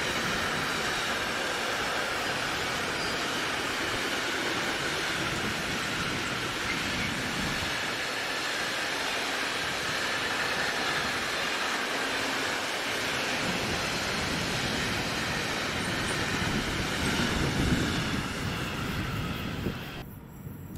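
A train rolling past on the track: the steady rolling noise of wheels and wagons on the rails, cutting off suddenly near the end.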